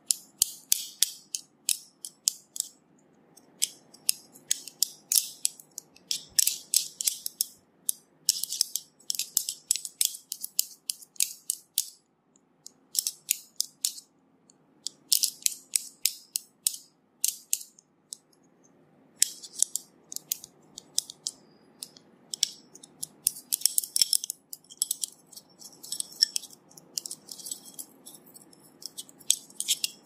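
Handfuls of thin metal massage rods clicking and clinking against one another in quick rattling runs, with a couple of short breaks.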